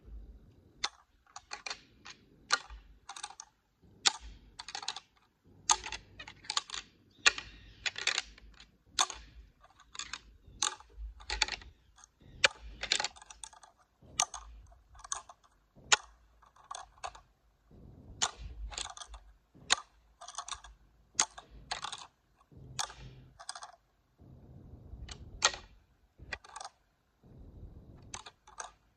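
Rattling antlers: a pair of deer antlers clashed and ground together in an irregular string of sharp clacks and clatters, about one or two a second, that stops a few seconds before the end. Antler rattling imitates two bucks sparring, to call in a buck.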